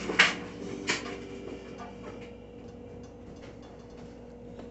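Two sharp knocks of a kitchen bowl being handled, close together near the start, then only a few faint light ticks.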